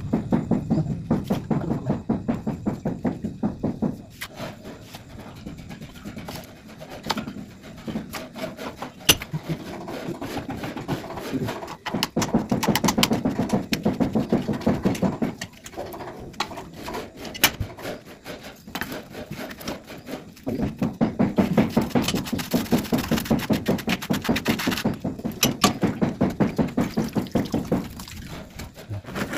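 Hand boring of a tube well: the boring pipe is worked rapidly up and down by hand in a water-filled muddy pit, making a fast rhythmic churning and splashing of water and mud, several beats a second. It comes in spells of a few seconds with quieter pauses between.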